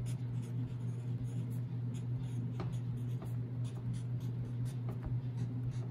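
Pen writing on paper on a clipboard: a run of short, light scratching strokes as words are written out. A steady low hum runs underneath.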